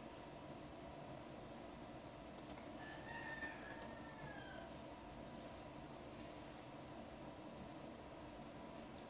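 Faint, steady, evenly pulsing chirping of crickets. About three seconds in, a faint rooster crows once for about a second and a half, its pitch dropping at the end.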